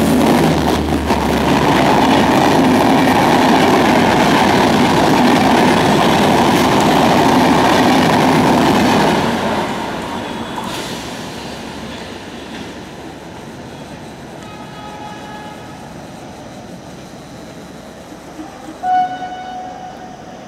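Double-decker express passenger coaches rushing past at speed, loud for about the first nine seconds, then fading as the train draws away. A train horn sounds faintly about two-thirds of the way through and again, briefly and louder, near the end.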